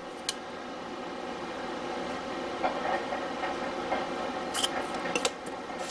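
Washi tape being handled and torn from its roll: a few short, sharp clicks and crackles, the clearest two near the end. Under them, a steady hum from a washing machine running in the background.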